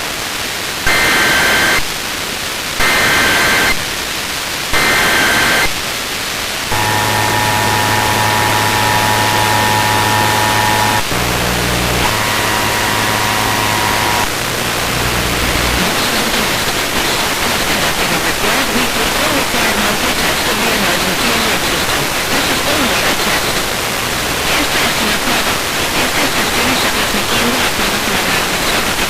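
Emergency Alert System alert off the radio: three short bursts of SAME header data tones, then the steady two-tone attention signal for about four seconds and a second, shorter tone just after. From then on there is only a steady hiss of radio static.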